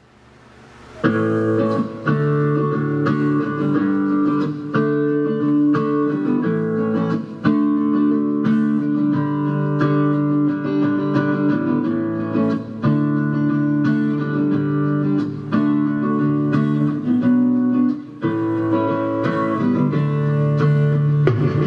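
Guitar music played through a Sakura 737 power amplifier under test, modified to five pairs of output transistors. The music drops out briefly at the start and comes back in about a second in.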